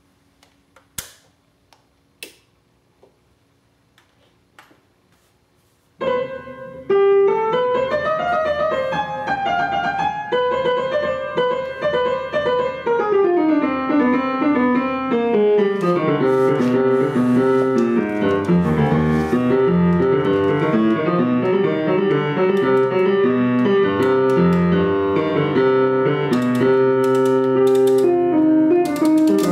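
A few sharp clicks, then from about six seconds in, piano music played through a McIntosh C28 preamplifier and MC 2105 solid-state power amplifier.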